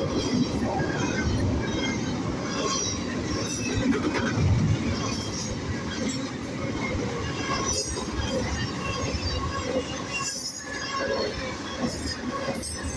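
Union Pacific intermodal freight train's loaded well cars rolling past: a steady rumble of steel wheels on rail, with short high squeals from the wheels scattered throughout.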